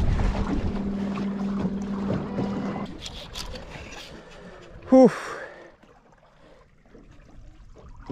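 Electric trolling motor humming steadily over wind and water noise, cutting out about three seconds in. A man's short grunt of effort comes about five seconds in.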